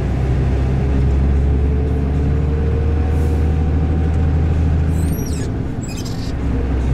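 Vehicle engine and road noise heard from inside the moving vehicle: a steady low drone with a faint whine rising slowly in pitch as it gathers speed. About five seconds in the drone briefly drops away, as when the driver lifts off the throttle, then comes back.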